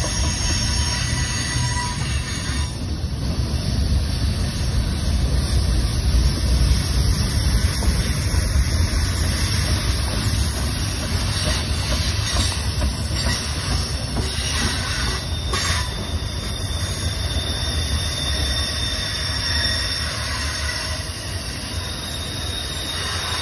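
Norfolk Southern manifest freight train's cars rolling past: a steady, heavy low rumble of steel wheels on rail, with thin high wheel squeals coming and going.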